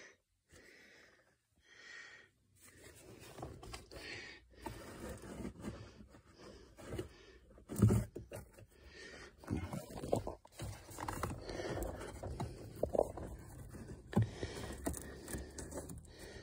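Handling noise of a car cabin air filter being pushed and checked in its plastic housing: irregular plastic scraping and rustling with scattered clicks, and a sharper knock about eight seconds in.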